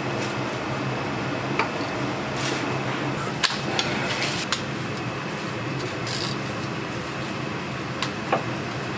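Kitchen noise: a steady fan-like hum with scattered sharp clinks and knocks of metal and crockery, the loudest about three and a half seconds in.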